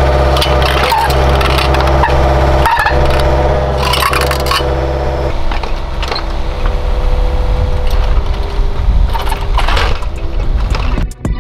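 Mini excavator engine running while its Engcon tilt rotator grapple sets a boulder, with rock knocking and scraping against rock. The engine note drops about five seconds in.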